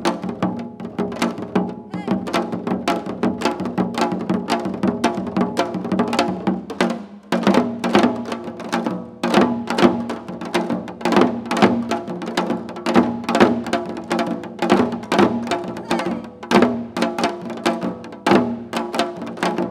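Seoljanggu: Korean janggu hourglass drums played in fast, dense rhythmic strokes, with a brief lull about seven seconds in.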